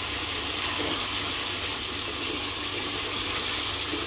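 Pangas fish pieces sizzling steadily in hot oil and spice paste in a pot while being sautéed in masala, with a spatula stirring them.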